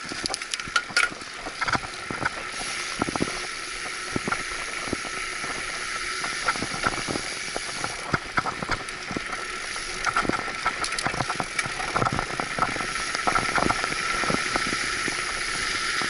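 Mountain bike rolling along a concrete path: a steady hiss of tyre and air noise with frequent rattles and knocks as the bike goes over bumps.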